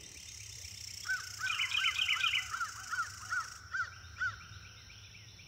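Owl calling: a series of about ten short toots, evenly spaced at roughly three a second, over faint high chirping of birds and insects.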